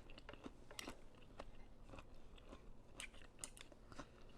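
A person chewing a mouthful of vegetables from a bowl of vegetable pho, with soft, irregular mouth clicks.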